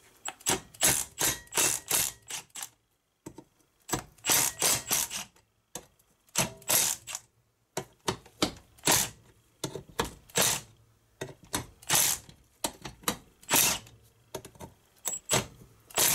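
Cordless impact driver hammering in about seven short bursts with pauses between them, loosening the cylinder head bolts of a 1970 Briggs & Stratton 2 hp engine one after another.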